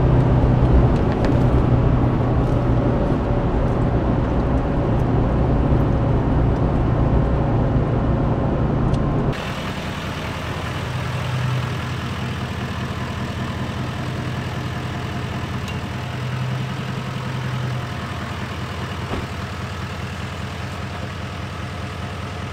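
L5P Duramax 6.6-litre V8 turbodiesel, fitted with a Stealth 64 turbocharger, heard from inside the cab while driving: steady engine and road noise with a low drone. About nine seconds in it switches to the same truck idling outside with the hood open, quieter and steady with a fine even clatter and slight swells.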